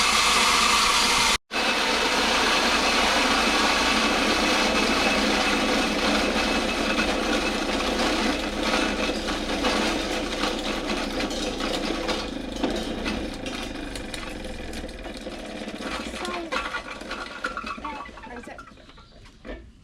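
Feed grinder running, cracking corn kernels, a dense steady grinding clatter. It cuts out for an instant about a second and a half in, then grows gradually quieter through the second half.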